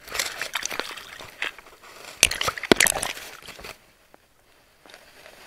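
Sea water splashing and sloshing close to the microphone, with a few sharp clicks a little over two seconds in, then dying down after about three and a half seconds.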